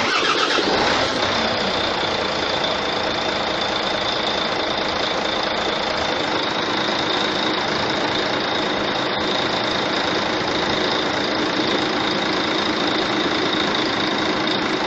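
Volvo D12D diesel truck engine with the cab tilted up, idling steadily just after starting, a little brighter for the first second or so before settling. Under the idle is a noise from the front of the engine that the mechanic traces to a worn fan hub bearing, with play in the fixed fan.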